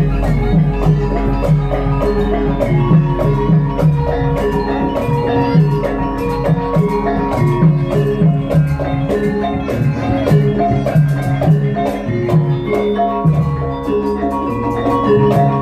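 Javanese gamelan music playing a steady, rhythmic piece: bronze metallophones chime a repeating melody over drums.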